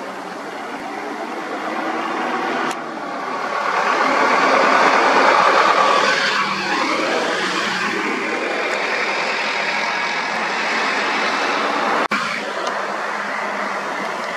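Road traffic passing close by: auto-rickshaws, a pickup, an SUV and a light box truck driving past, engine and tyre noise swelling to a peak about five seconds in and then dropping in pitch as vehicles go by. The sound breaks off abruptly near the end.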